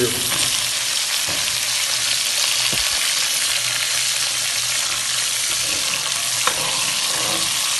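Sliced onions and freshly added green garlic sizzling in hot oil in a metal pot, frying for a saag tadka, with a steady hiss as they are stirred with a ladle. A few light clicks of the ladle against the pot.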